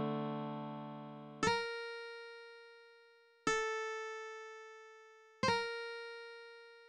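Synthesized guitar played back by tablature software: a chord fades out, then three single high notes are plucked about two seconds apart, each left to ring and decay slowly.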